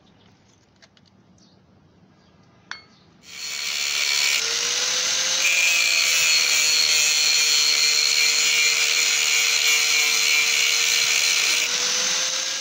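A few small clicks, then about three seconds in an angle grinder starts and cuts into a rusty steel blade with a thin cut-off disc: a steady motor whine under a loud high grinding hiss of abrasive on metal.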